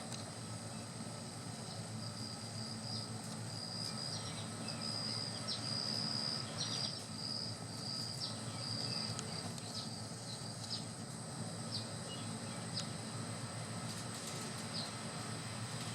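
Outdoor insect sound: a steady high-pitched drone with a broken high trill for the first half, over a low background rumble. A few short high chirps are scattered through.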